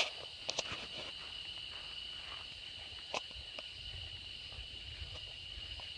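Steady high-pitched drone of insects, with a few short clicks and soft footsteps.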